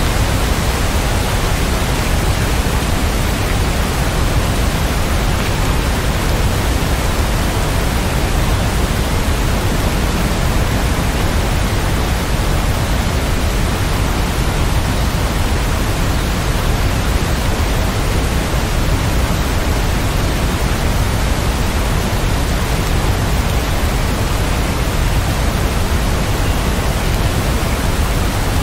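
Steady heavy rain: an even, unbroken hiss with no separate drops standing out and no thunder.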